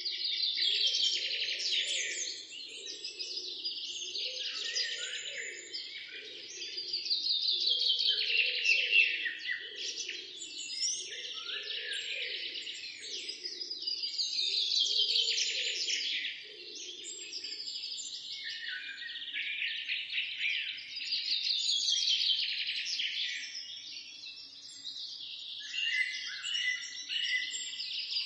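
Small songbirds singing, fast chirps and trills overlapping, swelling into a louder burst of song every several seconds. A faint low pulsing sound repeats underneath during the first half.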